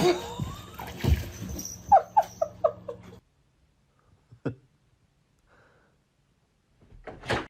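A small animal squeaking, about five short high squeaks in quick succession about two seconds in, over background noise. The sound cuts off suddenly about three seconds in.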